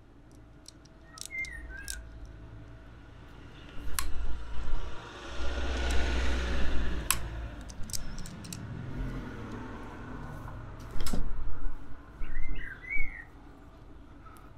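Heavy-duty hand crimping tool squeezing a ring lug onto a 16 mm battery cable, with metal clicks about four, seven and eleven seconds in. Short bird chirps about a second and a half in and again near the end.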